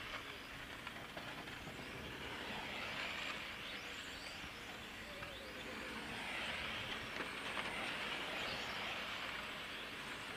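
1/8 scale electric on-road RC cars racing: a steady hiss of tyres and electric drivetrains with faint high motor whines, swelling twice as the cars come round the track.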